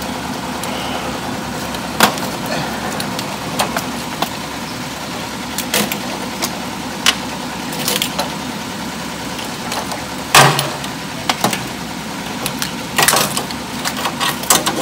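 Bundled wiring loom and connectors being handled and pushed into a sheet-metal electrical box, giving scattered clicks and knocks, with a sharper knock about ten seconds in. A steady machine hum runs underneath.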